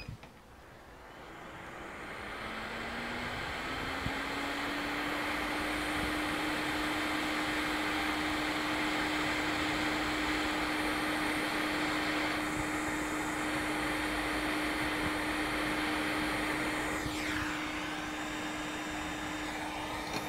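Hot air rework station blowing through its nozzle to desolder a small chip from a laptop motherboard: a steady hiss with a fan hum that rises in pitch over the first few seconds as it comes up to speed, then holds steady.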